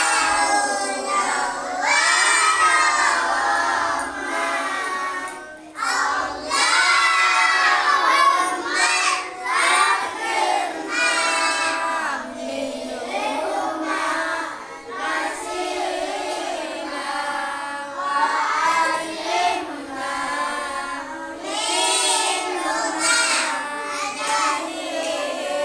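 A group of children chanting a prayer together in a sing-song voice.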